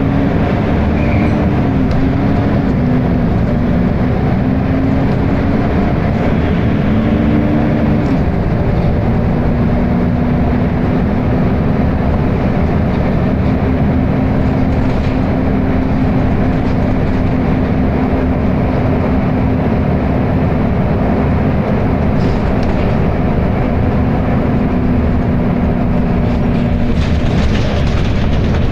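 Volvo B10BLE bus running with its very loud engine cooling fan droning. The tone wavers up and down for the first eight seconds or so, then holds steady until it drops away near the end.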